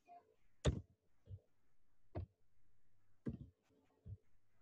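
A handful of short, sharp clicks at irregular intervals, the loudest about a second in, over a faint steady hum.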